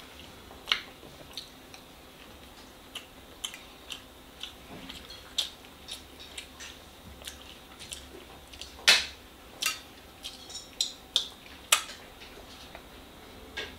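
A person eating close to the microphone: chewing and mouth sounds, with many short, sharp clicks and taps of a fork on the plate scattered throughout. The loudest clicks come about nine and twelve seconds in.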